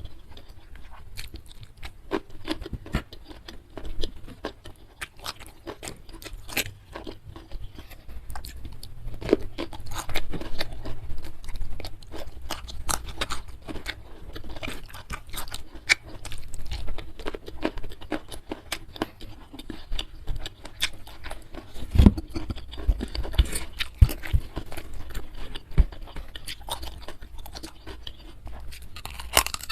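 Close-miked chewing and crunching of food, with irregular crackly bites and mouth sounds, in ASMR mukbang style.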